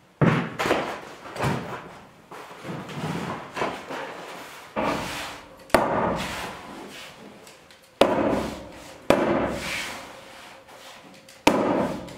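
Hammer tacker driving staples through tar paper into a board wall: about six sharp, irregularly spaced strikes, with the paper rustling between them.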